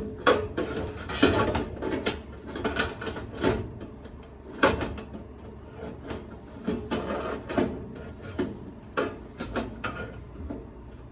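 Irregular clicks, knocks and rattles of tools and metal parts being handled at an electric stove, about two dozen sharp hits spread unevenly, some in quick clusters.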